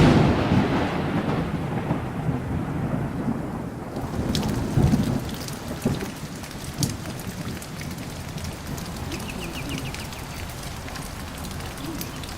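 Thunderstorm: a sudden thunderclap at the start that rumbles away over several seconds, then steady heavy rain with individual drops heard as small ticks.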